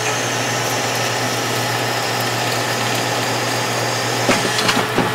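Hardinge DSMA automatic turret lathe running with a steady hum, a few light clicks about four seconds in.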